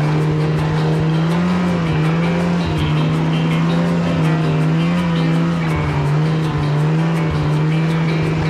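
Snowmobile engine running at fairly steady throttle, its pitch rising and falling slightly with the throttle.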